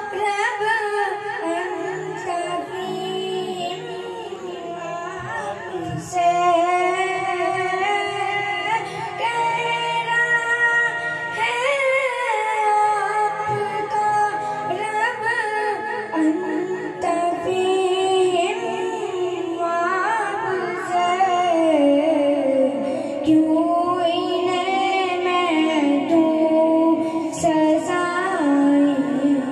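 A boy singing a naat, a devotional poem in praise of the Prophet, solo and in a high voice into a microphone. His long, wavering melodic lines bend and turn without pause.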